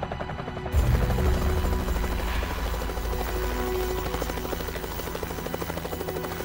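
Helicopter close by, its rotor beating and its engine running in a dense, steady rumble that gets abruptly louder under a second in, with background music under it.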